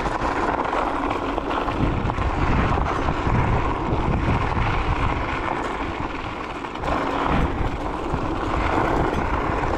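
Varla Eagle One electric scooter riding along a gravel trail on knobby off-road tires: steady tire and chassis noise over loose gravel with a fluctuating low rumble of wind on the microphone.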